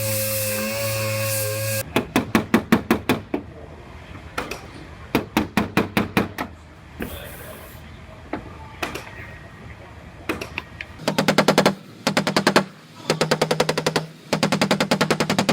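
Bursts of quick, sharp hammer strikes on car-door sheet metal, several per second with short pauses between, growing denser and faster near the end.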